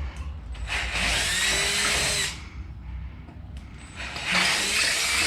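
Power drill running in two bursts of about a second and a half each, boring out a hole in a metal bracket with a larger bit.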